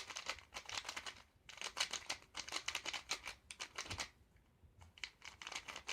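3x3 Rubik's cube being turned quickly, its plastic layers making fast runs of light clicks, working freshly applied lube into the mechanism; a brief lull comes a little past the middle.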